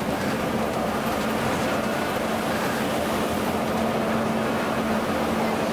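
Steady engine drone and road noise inside a Scania coach cruising at highway speed, with a constant low hum. The bus is running flat out at its top speed.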